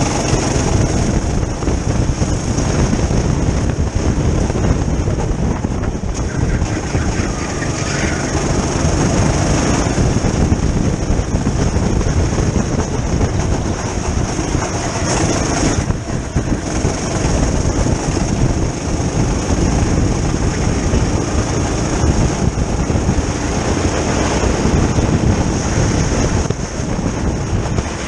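Go-kart engine running at speed under the driver, with its pitch shifting as the kart works through the corners. Heavy wind rumble on the microphone runs under it.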